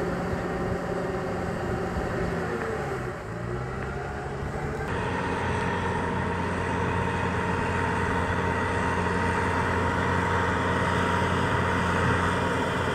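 Kubota M6040 SU tractor's four-cylinder diesel engine running steadily as it works a flooded rice paddy, growing slightly louder as it comes nearer.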